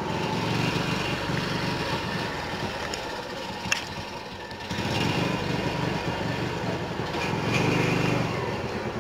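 A small engine running steadily, with a single sharp click a little under four seconds in.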